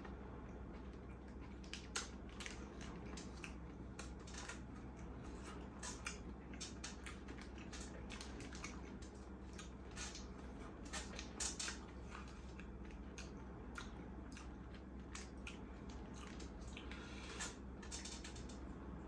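Close-miked chewing and biting of a spicy egg burger, with many irregular wet mouth clicks and crunches over a steady low hum.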